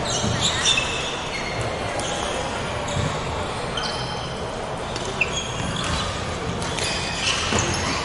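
Badminton hall sounds: court shoes squeaking briefly and repeatedly on the sprung wooden floor, with occasional sharp racket strikes on shuttlecocks, all echoing in the large hall.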